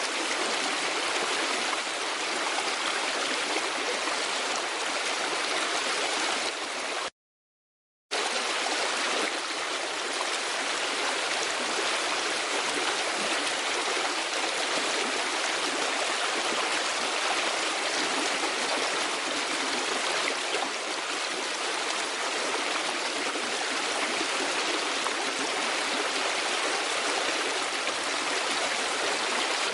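Running water of a stream, a steady even rushing. It cuts out completely for about a second, a quarter of the way in, then resumes unchanged.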